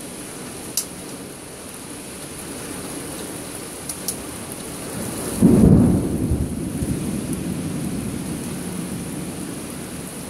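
Steady hiss of heavy rain from a thunderstorm, with a few sharp ticks in the first four seconds; about five and a half seconds in a loud, low peal of thunder breaks and rumbles away over the next few seconds.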